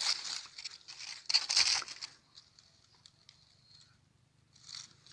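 Dry leaf litter rustling and crunching, in two loud bursts, one at the start and a longer one about a second and a half in, then a few light clicks and a shorter rustle near the end.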